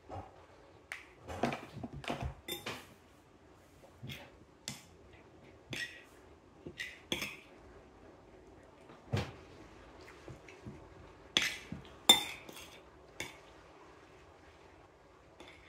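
Metal spoon clinking and scraping against a ceramic plate while scooping up rice and stew, in scattered short clicks and scrapes, the sharpest about three quarters of the way in.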